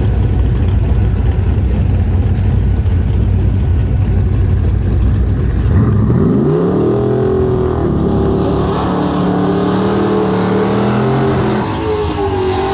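A loud, steady low rumble, then about six seconds in an AMC Gremlin drag car launches: its engine note climbs fast and stays high, stepping in pitch a few times as it accelerates away down the strip.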